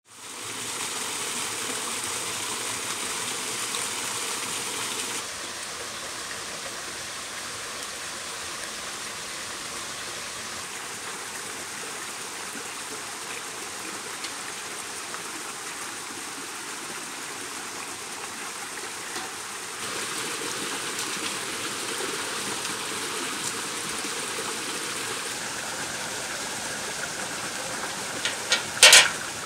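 Steady rushing of a forest stream and small waterfall, dropping a little in level about five seconds in and rising again about twenty seconds in. Near the end comes a brief cluster of sharp clicks, the loudest sounds here.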